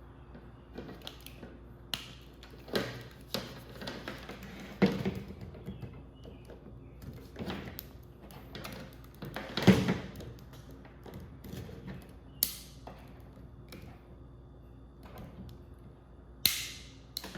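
Scattered taps, clicks and knocks of hand tools working at a plastic power-supply casing to get it open, with the loudest knock about ten seconds in and two short high-pitched swishes in the second half.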